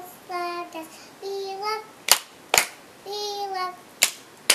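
A young girl singing unaccompanied in short held phrases, with four sharp hand claps between them in two pairs.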